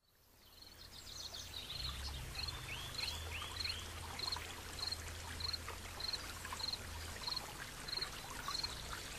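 Nature ambience fading in: running water, with a short high chirp repeating about every half second and three arching bird calls about three seconds in.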